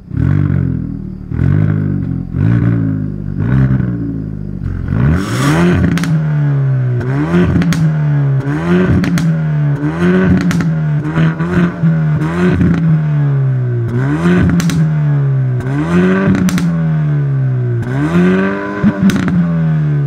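Hyundai i30N Fastback's 2.0-litre turbocharged four-cylinder being revved while stationary, heard at the exhaust. It starts with four quick blips about a second apart, then about a dozen longer rev-ups and drops, one every second or two, with sharp pops and crackles from the exhaust as the revs fall.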